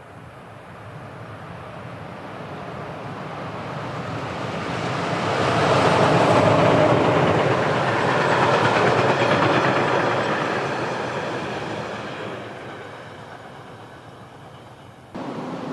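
A train passing by. The sound grows steadily louder, is loudest about six to nine seconds in, then fades away. Near the end it cuts abruptly to a different, steady sound.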